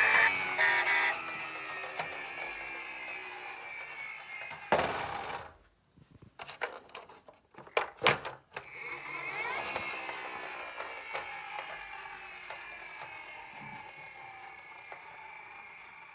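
Miniature toy ambulance cars rolling down a slope, their wheels whirring and slowly fading. About five seconds in the whir ends with a knock, and a few clicks and clacks follow. About eight and a half seconds in another run starts and its whir fades slowly.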